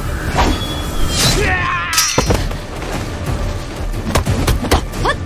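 Dramatic background music with fight sound effects: sudden hits and whooshes, several in quick succession near the end.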